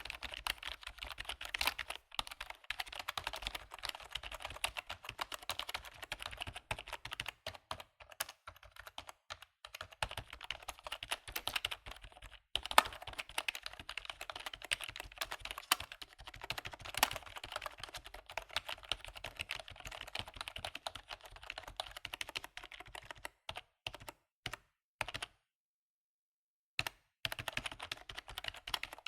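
Rapid typing on a computer keyboard, a dense run of key clicks with brief pauses, thinning out and stopping for a second or two near the end before it starts again.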